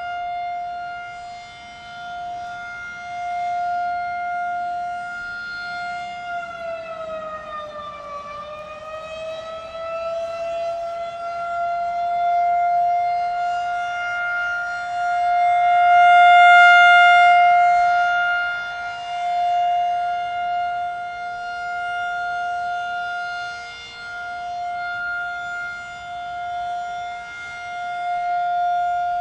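Federal Signal 2001-SRN rotating outdoor warning siren sounding a steady alert tone, swelling and fading in loudness as the horn turns toward and away. About six seconds in, the pitch sags and climbs back to the steady tone within a few seconds.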